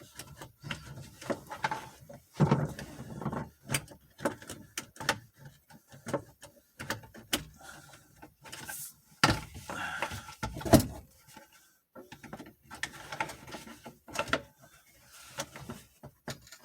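Hard plastic steering column shroud being worked into place by hand: irregular clicks, taps and scraping of plastic, with a couple of sharper knocks a little after halfway.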